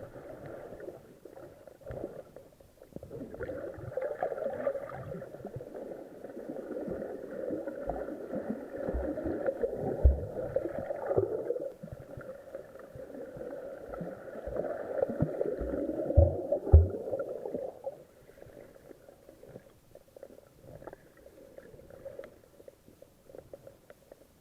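Muffled sea water sloshing and gurgling close to the microphone, with a few dull knocks about ten and seventeen seconds in; it grows quieter for the last six seconds.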